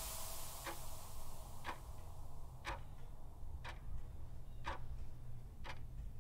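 Quiz countdown timer sound effect ticking about once a second, over a low steady hum.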